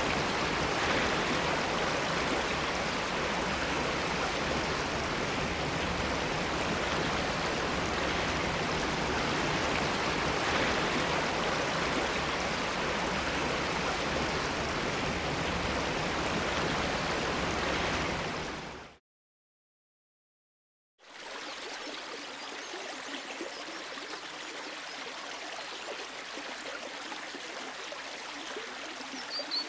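Recorded running water: a steady, loud rush of water fades out about two-thirds of the way through, then after a two-second silence a quieter flowing stream begins, with a brief bird chirp near the end.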